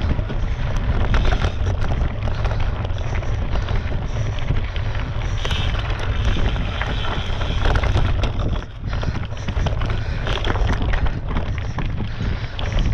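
Wind buffeting a GoPro microphone on a moving mountain bike, with many small knocks and rattles. The noise eases briefly about two-thirds of the way through.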